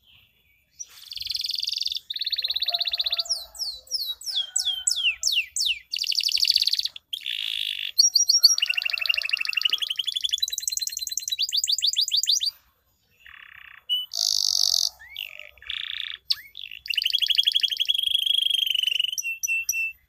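Domestic canary singing a long song of chirps, quick falling whistles and fast trilled rolls, starting about a second in and breaking off briefly past the middle before rolling again.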